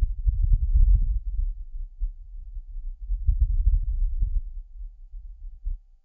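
Wind on Mars buffeting the Perseverance rover's EDL microphone, filtered to cut out rover noise: a low rumble that swells in gusts, strongest in the first second and again from about three seconds in, then fading.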